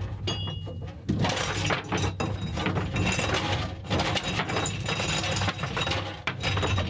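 Galvanised anchor chain clanking and rattling as it is run out of the yacht's chain locker, link after link striking metal with no break.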